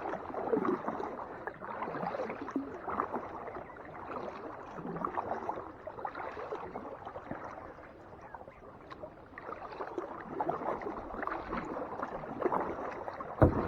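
Kayak paddle strokes in lake water: splashing and trickling from the blades that swell and fade unevenly.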